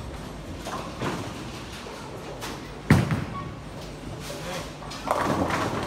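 A bowling ball thuds onto the lane as it is released, about three seconds in, then rolls, and a crash of pins follows about two seconds later.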